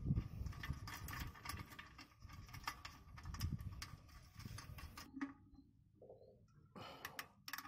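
Irregular clicks and knocks of hand tools working on a truck's clutch adjusters, over a low rumble; they thin out about five seconds in, with a few more clicks near the end.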